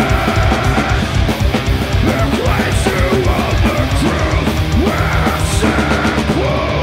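Doom metal band playing loud live: electric guitars and a drum kit with crashing cymbals, with notes bending up and down in the middle.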